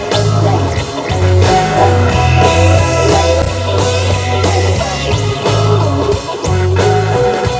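Rock band playing: guitar lines over a steady bass line and drums.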